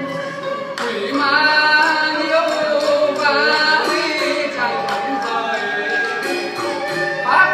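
Music with singing: a wavering, melodic vocal line over instrumental accompaniment, swelling about a second in.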